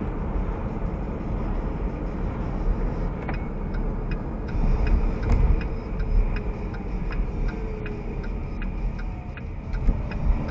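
Car driving, its road and engine noise a steady low rumble inside the cabin. From about three seconds in there is a regular ticking, about three ticks a second.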